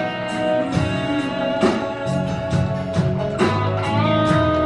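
Instrumental break of a country band playing live: guitars strummed over bass and a steady beat, with no singing.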